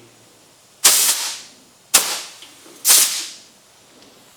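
Compressed air hissing from an air chuck in three short blasts, each starting sharply and fading within about half a second, as shop air is fed into a hydraulic cylinder to lift the ripper.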